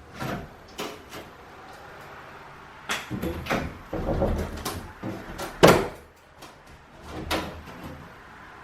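Scattered knocks and scraping from hand demolition: stick-on kitchen backsplash being pried and pulled off the wall. There is a stretch of scraping about halfway through and a single loud knock shortly after.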